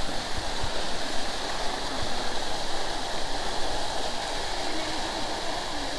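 Water fountain splashing steadily as a curtain of water pours over the rim of its bowl into the basin below.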